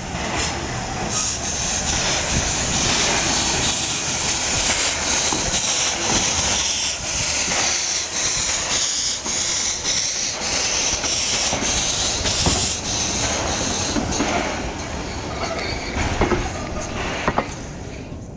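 Steam locomotive on the move: a steady high squeal and hiss over frequent knocks and clicks of wheels on the track.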